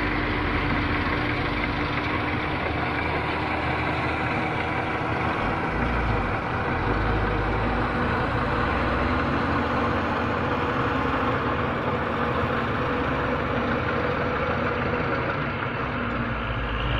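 Diesel engine of a Hitachi Zaxis 210 hydraulic excavator running steadily.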